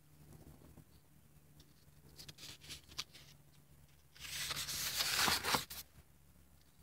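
A thick, collaged art-journal page being turned in a spiral-bound book: a paper rustle lasting about a second and a half, starting about four seconds in, after a few lighter paper crinkles and taps.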